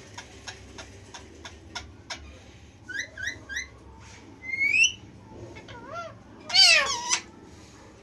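Indian ringneck parakeets calling: a run of sharp clicks over the first two seconds, then three short rising chirps and a single rising whistle. Near the end comes the loudest sound, a wavering cat-like meow imitation.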